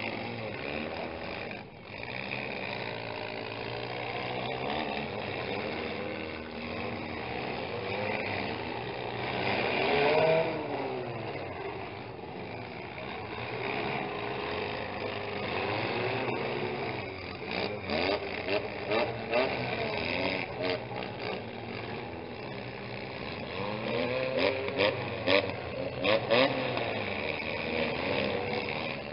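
Several mini-class demolition derby cars' engines revving up and down over each other. In the second half a run of sharp bangs and knocks cuts through the engines.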